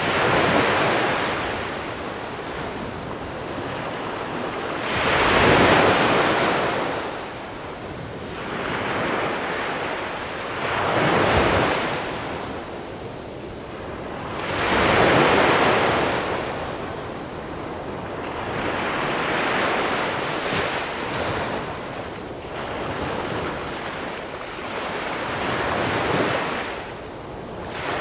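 Small sea waves breaking and washing up over a shore of small pebbles, each surge swelling and fading about every four to five seconds, with a steady hiss of water between.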